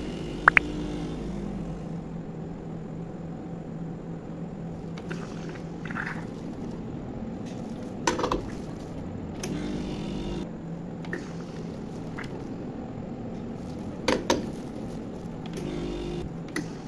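Gemilai espresso machine humming steadily, with a few sharp metal clinks: a double one just after the start, one about eight seconds in, and two close together about fourteen seconds in.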